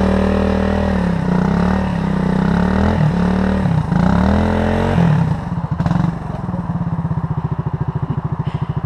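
Suzuki DR single-cylinder dual-sport motorcycle engine revving up and down repeatedly as the rider tries to get the bike out of the mud. About five seconds in, the revs drop to a steady, lumpy idle.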